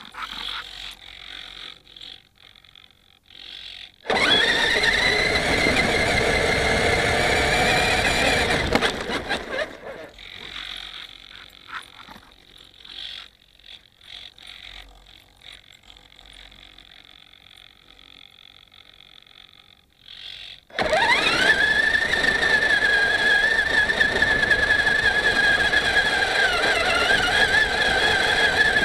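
Traxxas Summit electric RC truck's motor and geartrain whining as it drives over snow, rising in pitch as it pulls away. It does this twice: about four seconds in and again about twenty-one seconds in. While it is stopped in between, the small whirring and clicking of the FPV camera's pan-and-tilt servos is heard.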